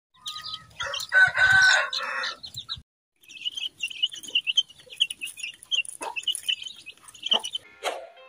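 A loud chicken call during the first two or three seconds, then a flock of young chicks peeping rapidly in many short, high chirps as they feed at a trough. A short whoosh comes near the end.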